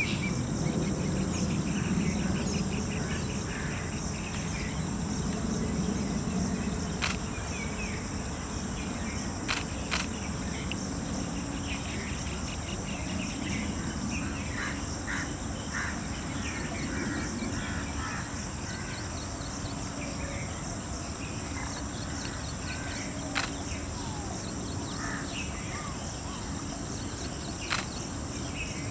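Outdoor bush ambience: steady high-pitched insect buzzing with small birds chirping on and off. A few sharp clicks stand out, two close together about ten seconds in and others later.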